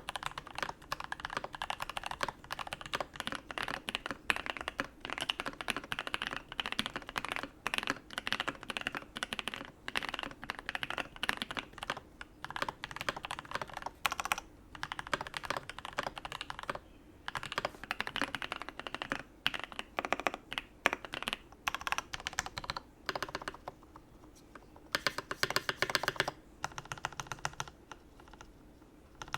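Fast, continuous typing on a U80-A SEQ2 mechanical keyboard with a brass plate and lubed, filmed switches: a dense run of key clicks and clacks, broken by a few short pauses and a longer lull near the end.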